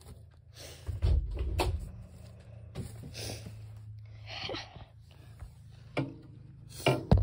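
Paper bedding rustling and knocks from hands working inside a guinea pig cage, with loud knocks about a second in and a sharp clink near the end as a small glass dish is set into the bedding. A steady low hum runs underneath.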